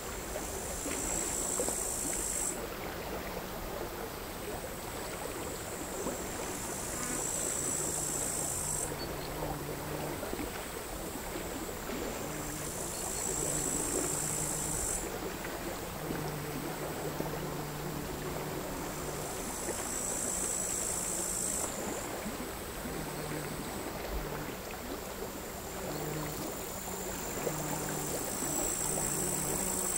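Crickets singing high-pitched trills of two to three seconds, repeating about every six seconds, over a steady wash of small waves lapping on the shore. A low hum comes and goes underneath.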